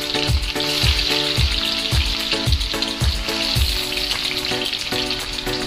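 Food sizzling steadily in hot oil in a wok, with music playing over it, its low beat about twice a second.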